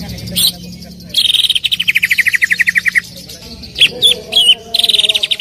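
Cucak ijo (green leafbird) singing: two fast trills of rapid repeated notes, each sliding down in pitch, the first beginning about a second in, with a few separate slurred notes between them.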